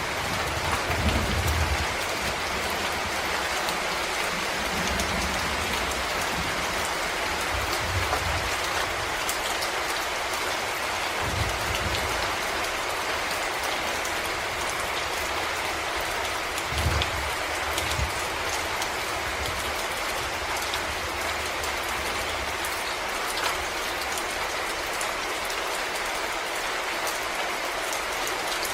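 Steady rain falling in a forest, drops pattering on leaves and ground as a dense hiss with scattered fine ticks. A few brief low rumbles come and go underneath.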